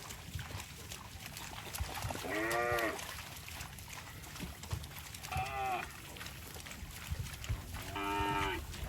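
Cattle mooing: three short calls, each under a second, rising then falling in pitch. A low rumbling noise runs underneath.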